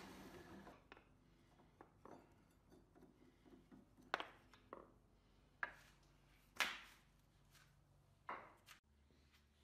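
A drill press with a hole saw spins down and falls quiet. Then come a handful of short, faint wooden knocks and scrapes as a walnut disc is worked free of the hole saw by hand, the loudest about two-thirds of the way through.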